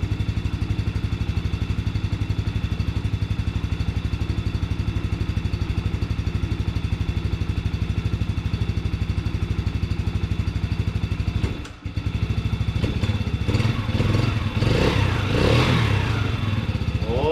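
Can-Am ATV engine idling with a steady, even beat as it warms up, freshly restarted after its flooded carburetor was cleaned and the water drained. About two-thirds through the sound drops out briefly, then the engine runs louder and less evenly.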